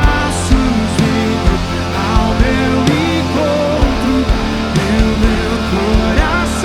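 Live worship band playing a full arrangement: steady drums with regular cymbal and snare hits, sustained bass and keyboard chords, and a gliding melody line above.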